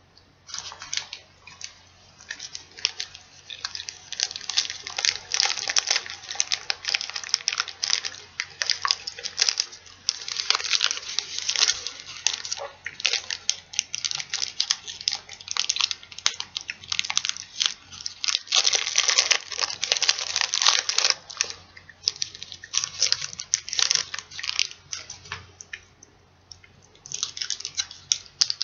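Reese's Peanut Butter Cup wrapper crinkling and rustling as it is unwrapped by hand, a dense crackle in long stretches with a few short pauses.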